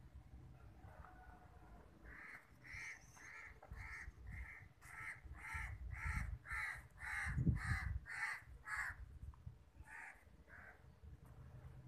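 A bird cawing: a rapid series of about thirteen short calls, roughly two a second, then two more after a short pause. A low thump comes in under the calls about seven and a half seconds in.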